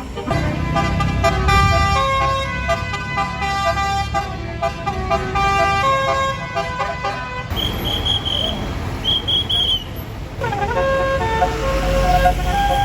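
Bus basuri horn, the multi-note 'telolet' air horn, playing a tune in stepped notes over the low rumble of the bus engine. It stops about seven seconds in, two short high beeps sound, and the tune starts up again near the end.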